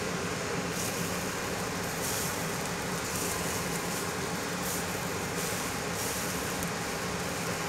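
Kitchen range hood exhaust fan running steadily with a constant hum. Ramen noodles sizzle in a hot grill pan as a spatula presses them, and the hiss flares up in short spurts several times.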